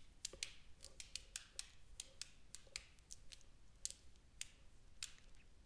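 Near silence broken by faint, irregular small clicks, about three or four a second.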